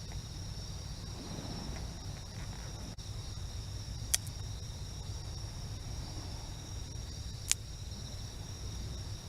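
A steady chorus of night insects such as crickets, over the low rumble of waves on the shore. Two sharp clicks stand out, about four seconds in and again about seven and a half seconds in.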